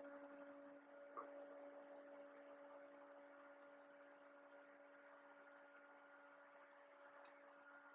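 Near silence: a faint steady hum, with one soft tick about a second in.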